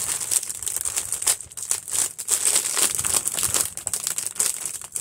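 Clear plastic bag crinkling and crackling in irregular bursts as hands pull and twist it open.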